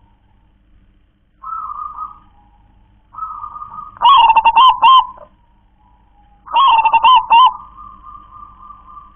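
Zebra dove (perkutut) of the local type singing its cooing 'klar-ke-tek-kong' song. A few soft notes come first, then two loud phrases of several quick coos about four and six and a half seconds in. The second phrase trails into a long even note.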